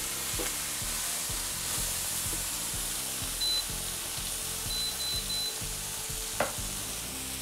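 Kimchi, ham and chicken sizzling steadily on a hot teppanyaki griddle plate while a spatula stirs and scrapes them. A few seconds in, the induction hob's touch controls beep once, then three times in quick succession.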